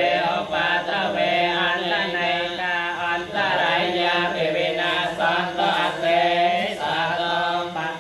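Theravada Buddhist monks chanting Pali verses together in unison, phrase after phrase with brief breaths between, over a low pitch held steady throughout.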